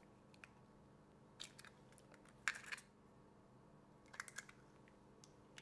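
Eggshells being broken open by hand: faint, scattered small cracks and clicks in a few short clusters.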